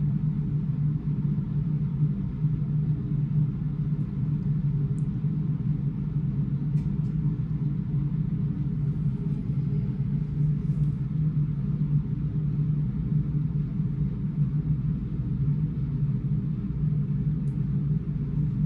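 A steady low mechanical hum, unchanging throughout, with a few faint ticks.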